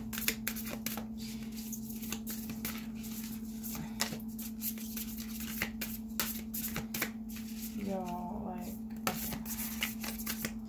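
A deck of tarot cards shuffled by hand, a steady run of quick soft clicks and slaps as the cards are pushed through each other, over a steady low hum.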